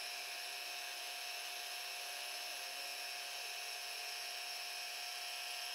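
Milling machine spindle running a dovetail cutter through the mini mill's base casting: a steady, high-pitched machine whine made of several even tones, unchanging as the cut feeds along.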